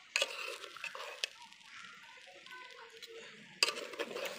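Parboiled rice and its boiling water being poured out of a cooking pot to drain: a rush of pouring and splashing with clinks of the pot, in two bursts of about a second each, one near the start and one near the end.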